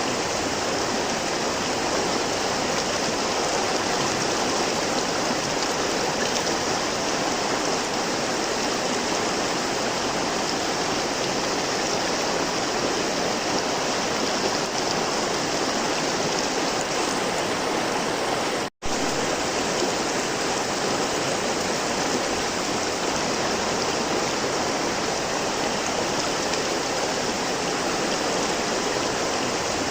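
River water flowing and rushing steadily, with a momentary dropout to silence about two-thirds of the way through.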